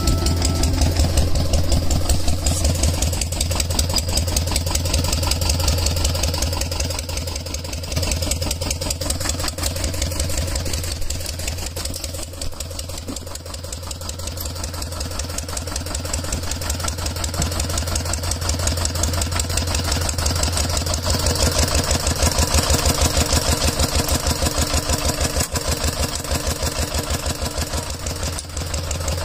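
Single-cylinder diesel engine of a two-wheel walking tractor chugging steadily with a fast, even beat. It is a little louder near the start and again from about two-thirds of the way in.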